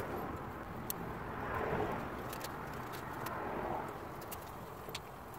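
Small wood fire burning in a wire-mesh box stove, a soft steady rush that swells briefly about a second and a half in, with a few sharp ticks.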